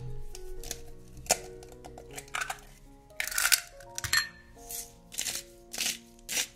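Soft background music with sustained notes, over a series of short clinks and scrapes of a kitchen utensil on dishware, coming roughly every half second.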